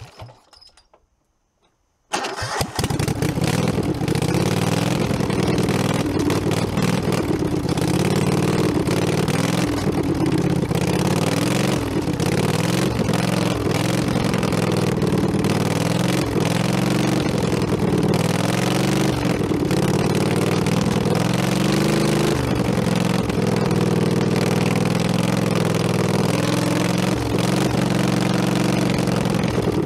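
An engine running steadily, its pitch wavering a little, cutting in suddenly about two seconds in after a moment of near silence.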